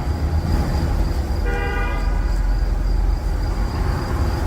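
Heavy vehicle rumble with one short horn toot about a second and a half in.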